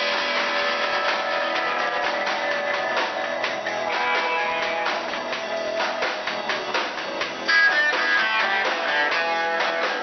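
Live rock band playing: strummed electric guitars over a drum kit. The music steps louder about seven and a half seconds in as a higher guitar line comes in.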